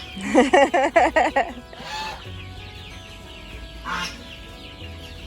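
A duck quacking in a rapid series of about eight loud quacks in the first second and a half, with chickens clucking around it and a couple of shorter bird calls later.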